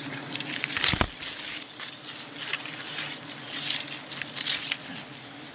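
Bees humming around freshly cut wild honeycomb, over a steady high insect tone, with scattered crackling and rustling and a sharp knock about a second in.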